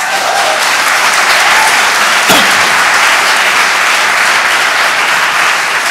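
Audience applauding steadily, a dense run of many hands clapping, with one sharp click standing out a little over two seconds in.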